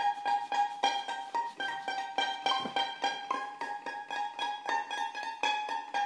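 Instrumental music: a plucked string instrument picking a steady run of notes, about three or four a second, over a sustained tone.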